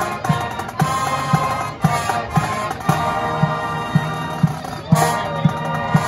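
High school marching band playing: brass holds chords over a steady drum beat of about two beats a second.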